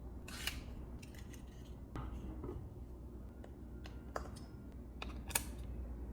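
Packaging and product being handled during an unboxing: scattered clicks and rustles, with sharp snaps about half a second in, about four seconds in and near the end.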